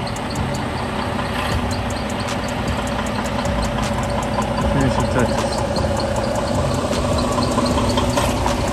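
Freightliner Cascadia semi truck's diesel engine running at low speed while the truck manoeuvres, growing a little louder toward the end.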